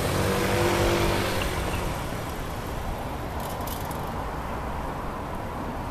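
Road traffic: a car passes on the street, loudest in the first two seconds and fading away, leaving a steady traffic hum.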